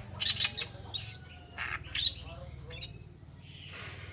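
Oriental reed warbler singing: a run of short, harsh, grating chattering notes, densest in the first two seconds and thinning out after, over a steady low hum.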